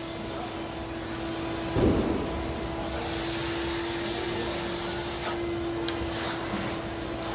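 Bowling-ball drill press running with a steady hum. About two seconds in there is a short thud, then a couple of seconds of loud hissing as the machine works the ball.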